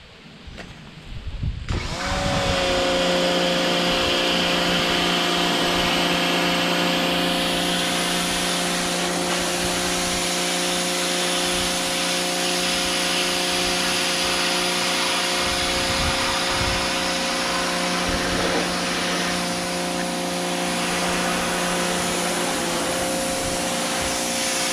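Powerworks 1700 PSI, 1.2 GPM electric pressure washer's motor and pump kicking on about two seconds in as the trigger is squeezed, then running steadily with a constant hum and the hiss of the water spray. The motor runs only while the trigger is held.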